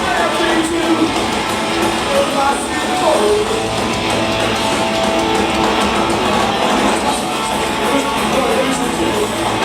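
Punk rock band playing live, loud and continuous, with guitar prominent, as heard from the audience.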